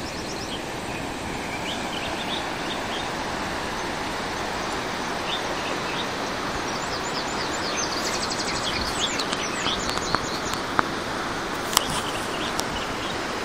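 Steady outdoor rushing noise with small birds chirping in short high calls, and a few sharp clicks in the last few seconds.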